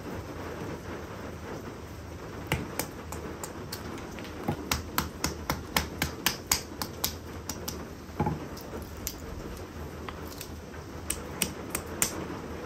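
Sharp wooden knocks of a baton striking the spine of a fixed-blade knife, batoning damp firewood into kindling. There is a quick run of knocks, about three a second, in the middle, with single strikes before and after.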